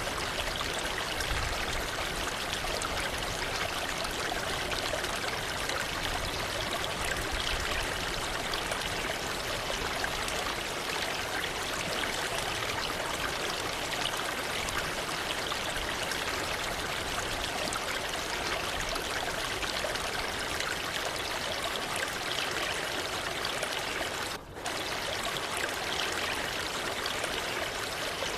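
Waterfall rushing and splashing steadily, with a short dip in level lasting under half a second near the end.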